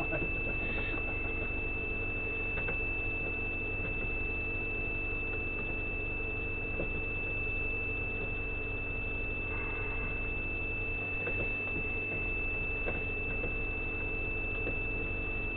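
Steady high-pitched electronic whine over a low electrical hum, with a few faint clicks.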